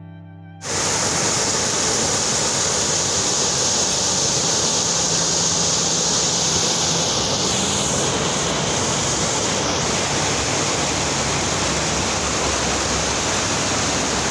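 Water rushing and churning in a concrete irrigation canal as it pours out from under a small bridge: a loud, steady rush that starts abruptly about half a second in.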